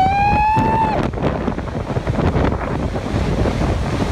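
Strong wind buffeting the microphone over rough, surging water. A short high cry rises and is held for about a second at the start.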